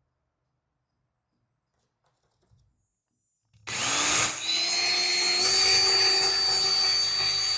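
Near silence, then a little over halfway through a power drill spins up and runs steadily, driving a wood screw through a lock mounting plate into a wooden door. Its whine rises as it starts, then holds with a slight step up in pitch.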